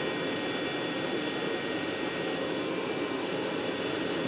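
Steady whine and rush of an aircraft turbine running, with a few high steady tones held over it and no rotor beat.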